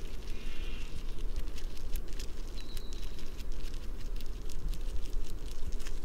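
American pika giving short, bleat-like calls: one just after the start and a brief thin high squeak about two and a half seconds in, over a steady low rumble and scattered sharp clicks.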